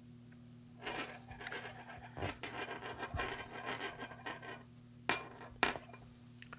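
Crimping pliers squeezing an aluminum sleeve crimp onto heavy monofilament leader: a few seconds of scratchy rubbing and handling, then two sharp clicks about half a second apart.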